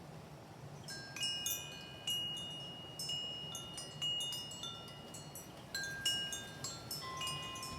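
Handmade metal pipe wind chime, said to be tuned to 528 Hz, struck by the wind. Its tubes begin clinking about a second in and ring on in irregular clusters of bright, overlapping tones.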